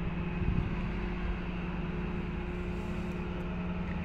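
DB Class 294 diesel-hydraulic shunting locomotive running light, its diesel engine giving a steady low drone.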